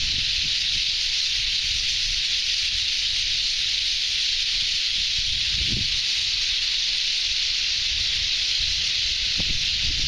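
Steady, dense din of a huge flock of small birds calling all at once, blending into a high hiss-like chatter in which no single call stands out. Wind buffets the microphone in low gusts, most strongly about halfway through and near the end.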